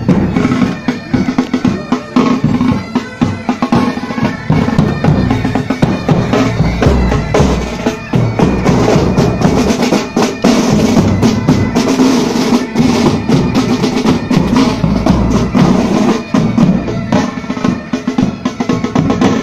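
Pipe band playing on the march: snare drums beating a fast rhythm with rolls, over tenor and bass drum strokes, with bagpipes sounding steady held notes beneath.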